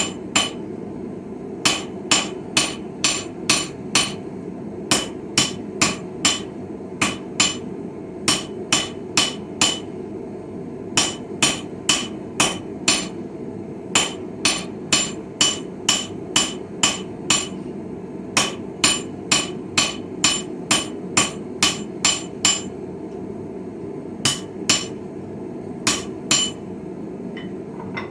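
Hand hammer striking hot steel on an anvil while forging a chisel: sharp ringing blows about two to three a second, in runs broken by short pauses, over a steady low rush. The hammering stops near the end.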